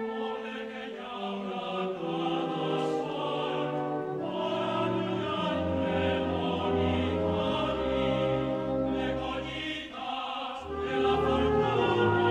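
Choir singing a cantata with a symphonic wind band accompanying. A deep bass line comes in about five seconds in; the music thins briefly just before ten seconds, then swells louder.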